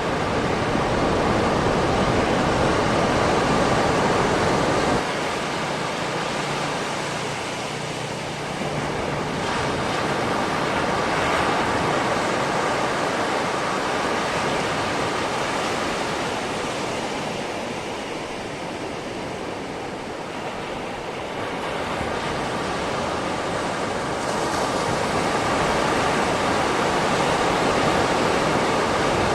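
Calm sea waves washing onto a beach: a steady rushing surf that swells and ebbs slowly over several seconds, dropping suddenly about five seconds in.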